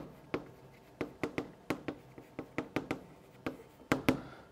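Chalk writing on a blackboard: a quick, irregular run of sharp taps and short scrapes, about four a second, as characters are written.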